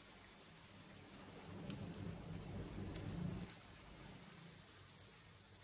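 A tadka of urad dal, cumin, mustard seeds and asafoetida sizzling faintly in hot oil, with a few light pops. A faint low hum swells for a couple of seconds in the middle.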